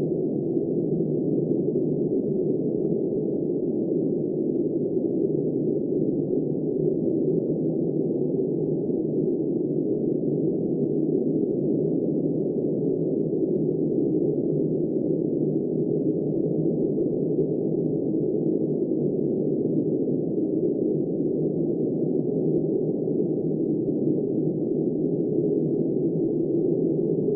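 Steady, muffled wind noise, low-pitched with nothing in the upper range, holding an even level with no gusts.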